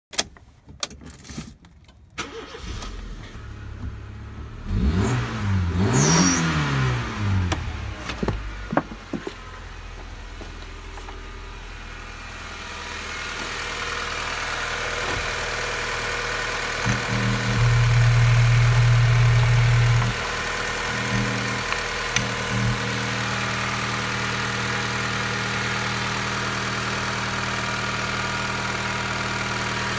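Honda D14Z1 1.4-litre four-cylinder petrol engine starting: after a few clicks the engine catches about five seconds in, its revs rise and fall, and it then settles into a steady idle. For about three seconds a little past the middle the engine note runs louder before dropping back to idle.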